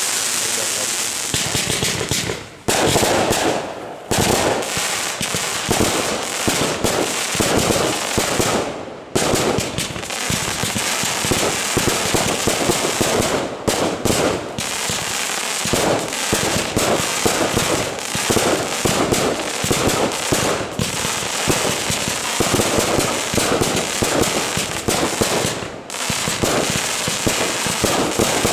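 Fireworks display: a dense, continuous barrage of crackling and rapid bangs, with a few brief dips between salvos.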